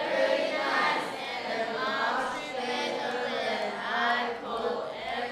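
A chorus of many voices chanting in unison, in a steady flow with no pauses.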